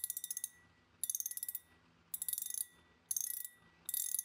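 Drag of a Shimano Stradic 14000 XG spinning reel clicking in five short runs of rapid clicks, about one run a second, as the spool is pulled against the drag.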